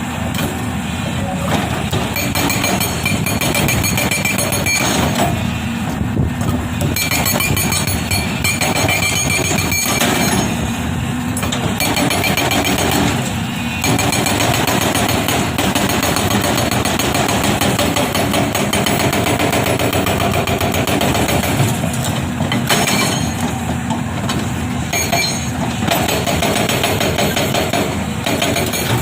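Unicorn UN140B hydraulic rock breaker on an excavator hammering rapidly and continuously, breaking off briefly several times, with the excavator's diesel engine running underneath.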